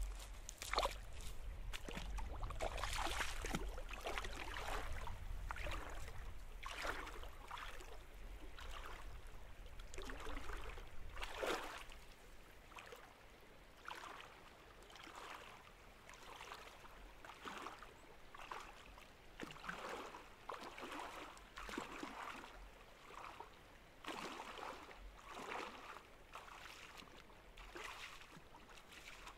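Legs wading through a shallow stream, the water sloshing and splashing with each stride, growing fainter partway through as the wader moves away.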